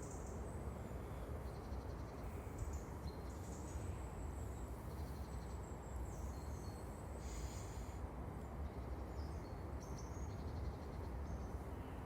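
Small forest birds giving thin, high-pitched calls here and there over a steady low rumble.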